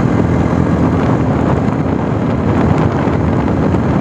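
Jawa 42 motorcycle's single-cylinder engine running steadily at cruising speed, nearly buried under heavy wind rush on the microphone.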